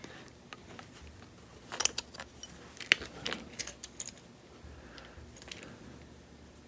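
Small metallic clicks and clinks of an antique push drill's metal parts as the drill is unscrewed and pulled apart by hand, coming in a few quick clusters about two to four seconds in.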